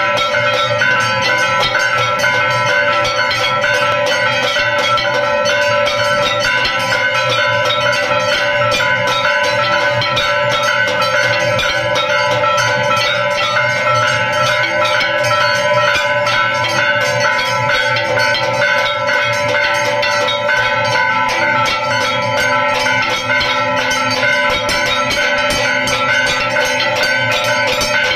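Temple bells rung rapidly and without a break for aarti, the quick strikes running together into one loud, steady ringing.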